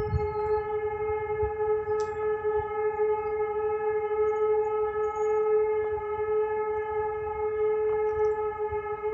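Civil-defence warning siren sounding one steady, unbroken tone, not very loud. In the German siren code a steady single tone is the all-clear (end of emergency) signal, not the rising-and-falling warning.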